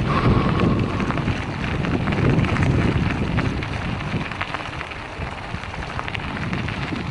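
Wind buffeting the microphone of a camera on a moving bicycle, over the crackle of the tyres rolling on gravel. The rush eases off in the second half.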